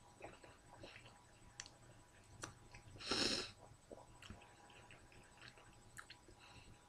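Faint chewing and wet mouth clicks from a mouthful of lamb yiros, with light crinkling of the paper wrapping under the fingers. One short breathy hiss about three seconds in stands out as the loudest sound.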